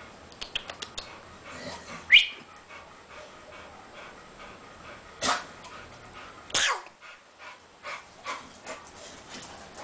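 American Staffordshire terriers making short sounds: a brief high rising yelp about two seconds in, then two short breathy bursts about a second apart in the middle, with light clicks and breathing around them.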